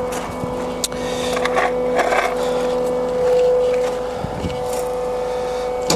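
Steady electric machine hum from a running LVD sheet-metal guillotine and its motorised sheet-removal conveyor: one held tone, with a lower tone under it for the first three seconds or so. Scattered light knocks sound over the hum.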